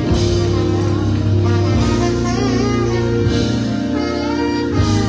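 Trombone playing a melody over a live band with bass and drums, and a tambourine shaken along with it.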